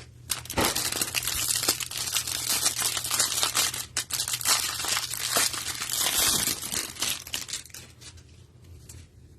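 Plastic wrapping and cardboard of a Panini Prizm football hanger box being torn open and the card stack unwrapped: dense crinkling and tearing that dies down about seven seconds in.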